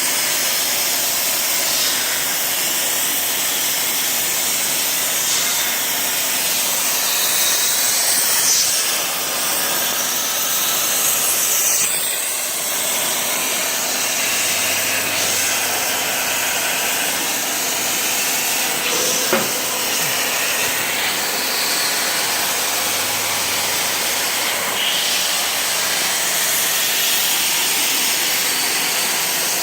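CNC plasma torch cutting quarter-inch aluminium plate, a steady hiss of the arc and cutting air. A single brief click comes about two-thirds of the way through.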